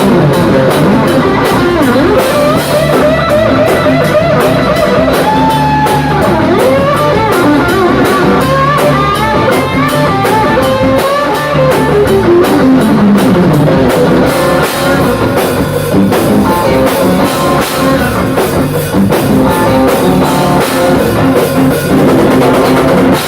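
Live rock band playing: an electric guitar lead with bending, sliding notes over a steady drum kit beat.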